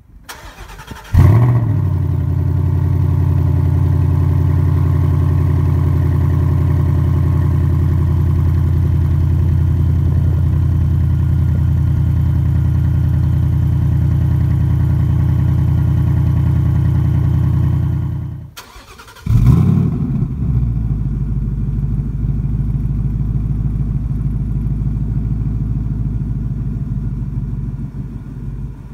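2018 Ford Mustang GT's 5.0 L Coyote V8 through its stock, non-selectable quad-tip exhaust, cold-started: a short crank, then the engine catches with a loud flare about a second in and settles into a steady fast idle. About two thirds of the way through it is switched off and restarted warm, flaring again and settling into a lower idle.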